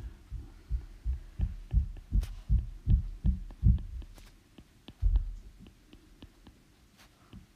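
A stylus striking and stroking a tablet's glass screen while sketching, heard through the device as a run of dull low thuds about three a second. One last thud comes about five seconds in, followed by faint light clicks.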